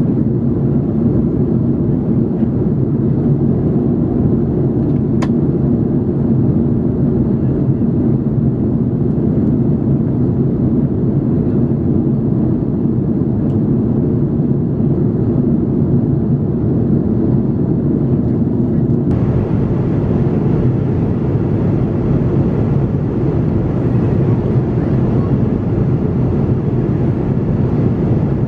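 Steady, loud cabin noise of an Airbus A330-300 in flight, a low even rumble of airflow and engines heard from an economy window seat during the descent. There is a faint click about five seconds in.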